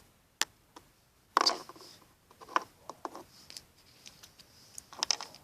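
Small plastic toy and its wrapping handled by hand: a few scattered sharp clicks and short rustles.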